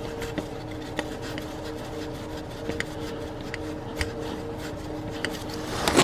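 A bolt being threaded by gloved fingers into an oil filter adapter: faint scattered clicks and rubbing over a steady two-tone hum, with a louder rustle near the end.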